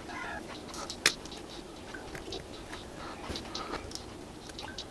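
Soft clicks and crunches of diagonal cutting pliers gripping and cracking open the small metal housing of a Mi Dual Driver in-ear earphone, with one sharper snap about a second in.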